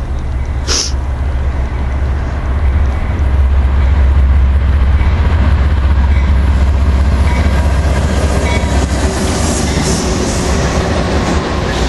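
Freight train rolling past close by: a steady heavy rumble of wheels on the rails that grows louder about three seconds in, with a few short high squeaks later on.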